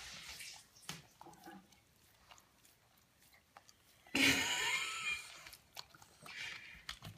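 Pug licking the smooth side of a bathtub: scattered wet smacking and slurping clicks of tongue against the tub. About four seconds in comes a louder, breathy burst lasting about a second.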